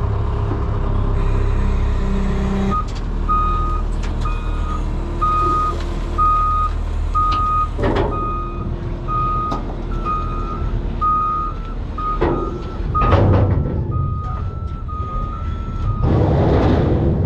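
Case SV340 skid steer running with its backup alarm beeping steadily, about two beeps a second, as it is driven off a flatbed trailer. A few loud clanks from the machine and trailer come around the middle and near the end.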